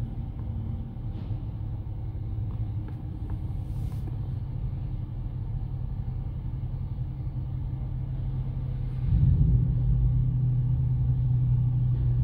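Car engine running with a steady low rumble; about nine seconds in it gets louder and slightly higher in pitch.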